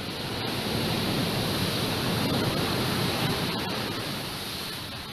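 Ocean surf surging in and breaking over lava pouring into the sea, a rushing wash of water that swells about a second in and fades toward the end.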